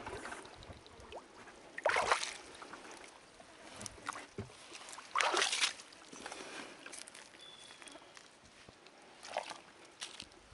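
Someone climbing out of a kayak onto a muddy bank and walking up over dry soil and leaf litter. Two louder scuffs come about two and five seconds in, a smaller one near the end, with light footstep crunches in between.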